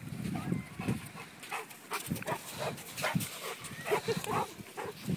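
A dog panting and snuffling close to the microphone, in short breaths about two or three a second.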